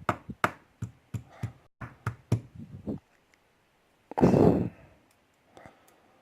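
Quick knocks on a small metal lock, about three or four a second, as it is tapped to shake out a pin and spring while being gutted. About four seconds in comes a short, loud rush of breath like a sigh.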